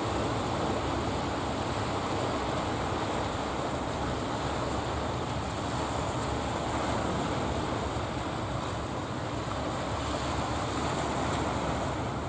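Steady rush of sea surf breaking at a harbour mouth, with wind buffeting the microphone.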